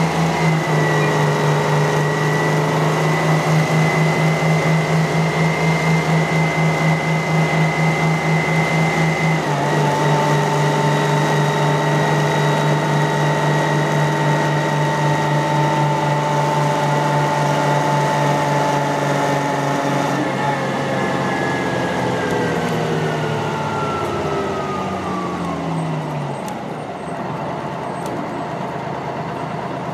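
A GM New Look transit bus's six-cylinder diesel engine and drivetrain heard from inside while under way: a steady, pulsing drone with a high whine that changes note abruptly about a third of the way in. From about two-thirds in it falls in pitch as the bus slows, settling to a lower, steady note near the end.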